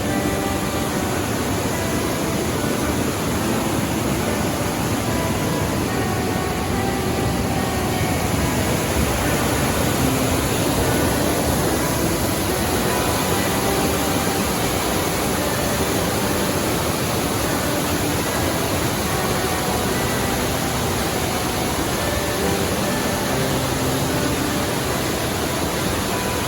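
Steady rush of a waterfall's falling water, loud and even throughout.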